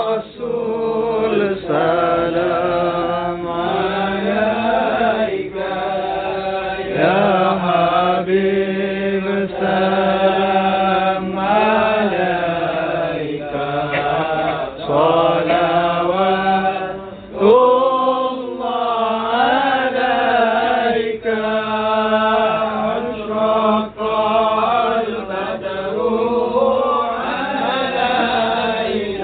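A group of men chanting Arabic salawat for the Prophet together in long, slow melodic phrases with short breaths between them. This is the standing (qiyam) part of a Maulid recitation.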